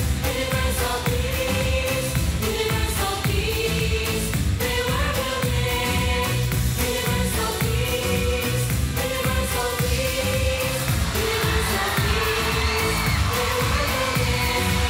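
Upbeat pop song performed live: solo singing into a microphone over backing music with a steady drum beat and strong bass. The vocal line changes about eleven seconds in.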